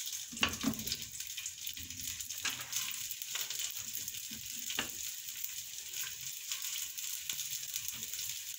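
Boiled rice sizzling steadily in a little hot vegetable oil in a granite-coated frying pan, with the scrape and tap of a spatula stirring and pressing the rice now and then.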